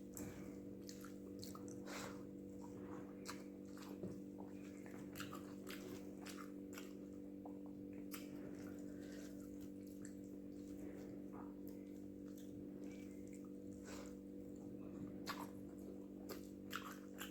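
Close-up sounds of a person eating rice with spicy egg gravy: irregular wet chewing, lip smacks and small clicks. A steady low hum sits underneath.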